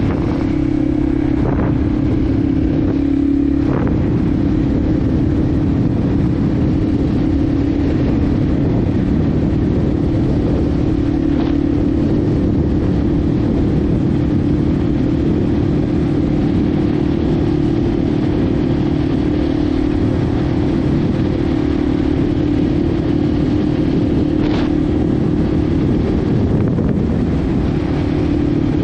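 Yamaha TW200's single-cylinder four-stroke engine running at a steady speed while the bike rides a dirt trail, heard from on board, with a few short clicks.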